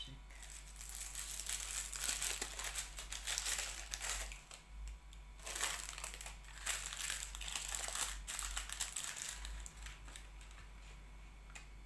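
Paper muffin liners crinkling and crackling as they are pulled apart and pressed into a muffin tin, in two spells with a short pause about halfway through.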